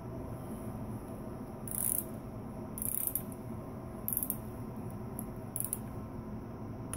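Click-type torque wrench on a camshaft bearing cap nut, ratcheting in four short bursts of pawl clicks. A single sharp click comes near the end as the wrench breaks over at its 15 ft-lb setting.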